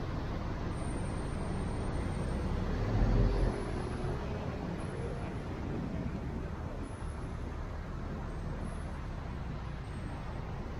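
Car driving slowly, heard from inside the cabin: a steady low engine and tyre rumble, with a single low thump about three seconds in.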